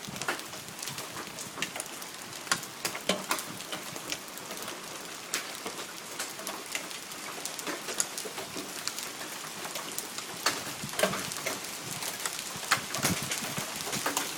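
Large hailstones falling and bouncing off a house roof and the ground: a steady hiss of falling hail with many sharp, irregular clacks and clangs of stones striking.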